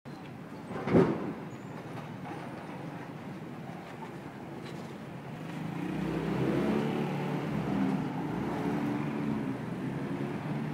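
A motor vehicle engine passes in street traffic, loudest around six to eight seconds in and then fading, with a sharp knock about a second in.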